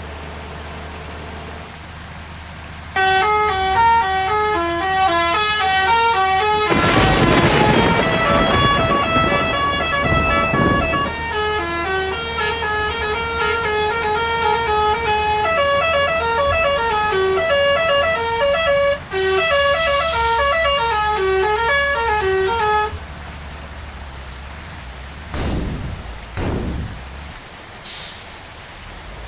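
Bus telolet horn, the multi-tone musical air horn fitted to Indonesian buses, playing a quick tune of short notes sounded as chords. It starts about three seconds in and stops suddenly about twenty seconds later. Around seven seconds in, a rushing noise swells over it for a few seconds.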